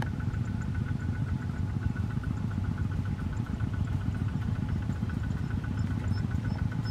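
Single-cylinder diesel engines of two-wheel walking tractors pulling trailers, running steadily with a rapid, even chugging beat.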